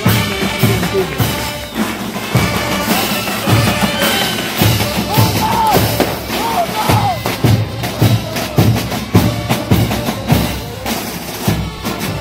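School marching band playing a march: a steady beat of bass drums and snare drums, with horn notes sounding over it in the middle.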